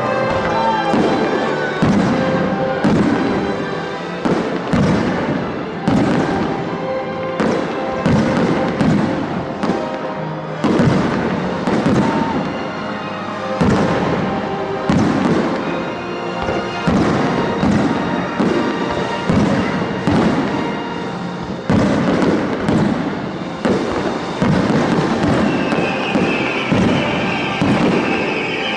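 Fireworks bursting one after another, about one bang a second, over music played through loudspeakers for a music-synchronised fireworks show. Near the end a bright hissing or crackling layer joins in.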